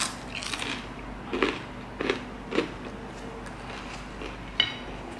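Close-miked chewing of a mouthful of stuffed focaccia: a few soft, irregular chewing and biting noises, with a sharp click near the end.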